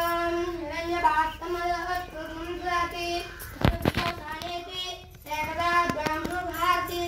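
A high voice singing a slow devotional song in long, held notes, with short breaks between phrases. A couple of sharp knocks sound about halfway through, and fainter ones about six seconds in.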